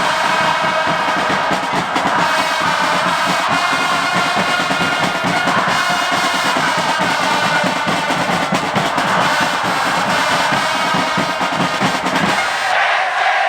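Football supporters chanting together as a large crowd in a stadium stand, over fast, continuous drumming. The drums stop near the end while the chant carries on.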